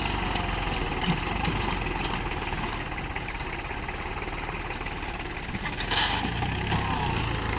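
Swaraj 843 XM tractor's three-cylinder diesel engine running steadily under load as it pulls a loaded trolley through deep sand, with a brief louder burst about six seconds in.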